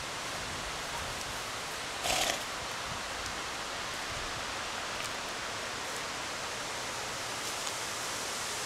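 Steady outdoor hiss of wind and rustling leaves, with one short breathy burst about two seconds in.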